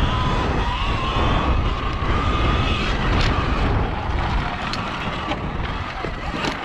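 Electric dirt bike riding a dirt single track: wind buffeting the microphone and tyres on dirt, with a faint electric motor whine climbing slightly in pitch. A few sharp knocks come from bumps, and the rumble eases in the last couple of seconds as the bike slows.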